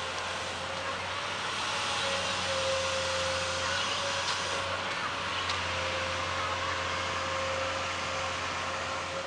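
Amphibious excavator's engine running steadily, with a constant mid-pitched whine over a steady noise.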